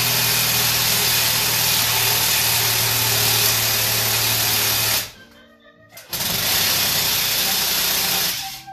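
Cordless drill running under load against an aluminium Ford 9-inch differential case. It stops about five seconds in, runs again about a second later, and stops near the end.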